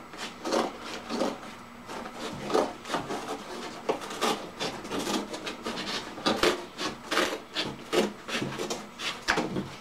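Scissors cutting down the corner of a corrugated cardboard box: a run of crunching, scraping snips, roughly two a second.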